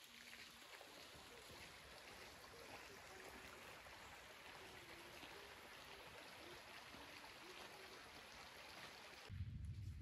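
Faint, steady rushing of a small forest stream. Near the end it breaks off abruptly and a louder low rumble takes over.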